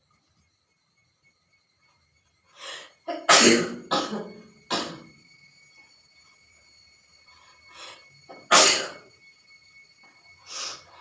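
A woman coughing and sneezing, set off by the smoke of burning chillies. A quick run of bursts comes a few seconds in, a loud single one comes about two-thirds through, and a weaker one comes near the end.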